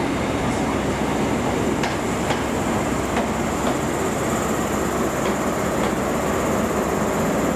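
Train running slowly through the station: a steady rumble and hum with a few faint wheel clicks over rail joints.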